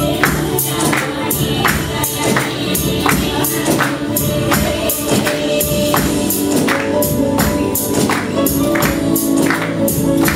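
Singing into microphones with music, and a group of listeners clapping along in a steady beat, about two to three claps a second.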